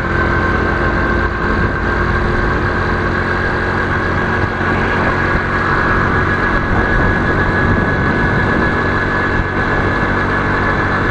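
Motorcycle engine running steadily at cruising speed, heard from a helmet-mounted camera, with a constant hum and low road and wind rumble.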